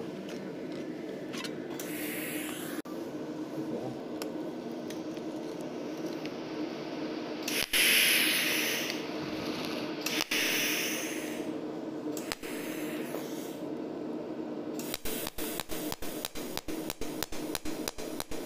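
Several short spurts of hissing from the welding torch, typical of shielding gas being released, over a steady machine hum. About three-quarters of the way in, the cold welding machine starts pulsing on the stainless steel sheet: a fast, even ticking of about five pulses a second.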